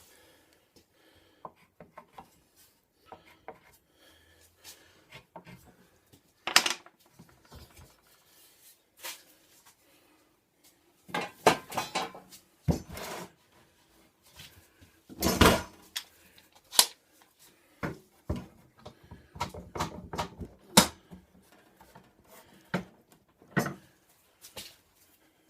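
Hand tools and pieces of wood being handled and set down on a workbench: irregular knocks, taps and clinks, in louder clusters about a third of the way in, around the middle and again after two-thirds.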